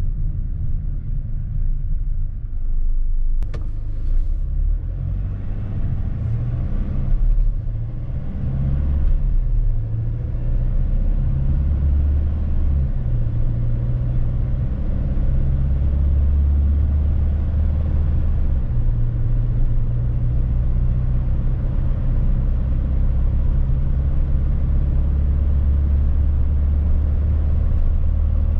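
Mercedes Sprinter van driving, heard from inside the cab: a steady low engine and road rumble whose pitch steps up and down as it changes speed. A few sharp clicks about four seconds in.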